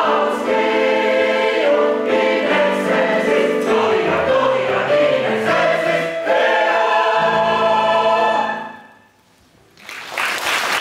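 Mixed choir singing with piano accompaniment, ending on a held final chord that dies away about nine seconds in. Applause starts near the end.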